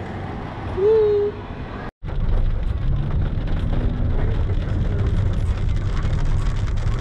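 Car cabin noise while driving on a wet road in the rain: a steady low rumble with faint ticking of raindrops on the glass. Before it, a brief hooting, voice-like tone about a second in, which is the loudest moment.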